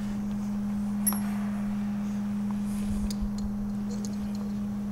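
Light metallic handling on a manual lathe while a part in the chuck is tapped by hand: one sharp metal clink with a short high ring about a second in, then a few soft clicks and knocks around three seconds, over a steady low hum.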